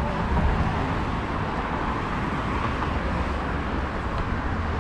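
Steady street traffic noise, a continuous low rumble of road vehicles without any single event standing out.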